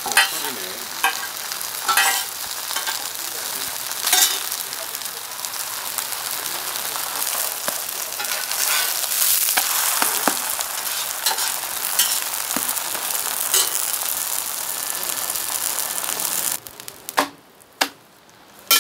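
Korean green-onion pancake (jeon) sizzling in oil on a flat griddle, with the occasional sharp tap and scrape of a metal spatula pressing it down. Near the end the sizzle cuts off suddenly, leaving a few loud spatula clacks.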